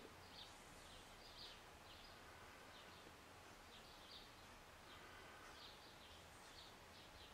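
Near silence: faint room tone with small birds chirping now and then, short high chirps in little clusters.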